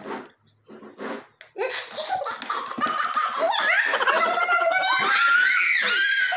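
Children and a woman laughing hard together. A few short bursts come first, then about a second and a half in it breaks into continuous, louder laughter with rising and falling squeals.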